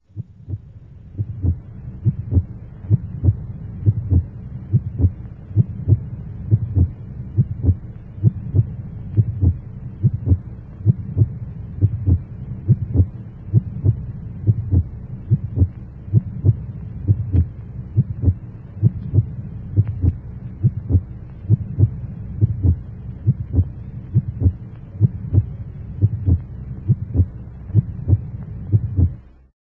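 Heartbeat sound effect: regular low thuds, about one and a half a second, over a steady low hum.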